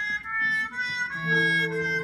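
Live stage band playing a song's instrumental introduction: a melody of held notes, with a lower sustained part joining about a second in.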